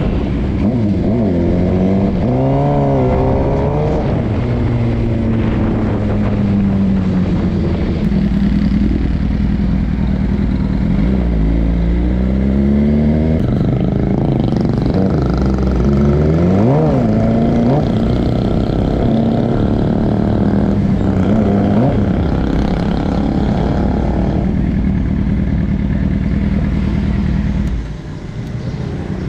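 Suzuki GSX-R750's inline-four engine running hard, its pitch rising and falling again and again as it revs up and changes gear. It drops quieter near the end.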